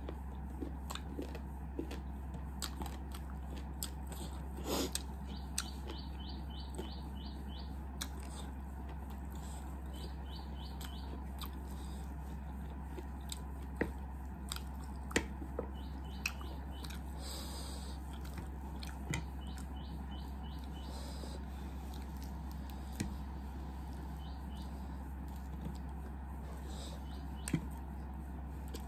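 Close-miked eating sounds: chewing and wet mouth clicks and smacks from someone eating fried chicken and noodles by hand. Short runs of rapid, high chirps recur in the background over a steady low hum.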